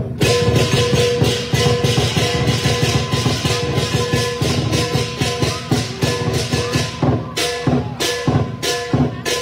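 Lion dance percussion band playing a fast, dense rhythm on drum and crash cymbals, with a few ringing metallic tones held underneath. It starts abruptly.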